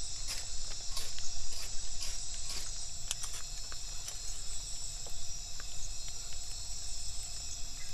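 Steady high-pitched chorus of crickets and other night insects, with scattered sharp crackles from a small kindling fire of dry grass and bamboo sticks as it catches.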